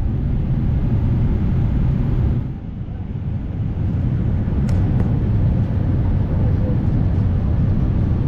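Steady low rumble of a Boeing 787-8 airliner heard from inside the cabin.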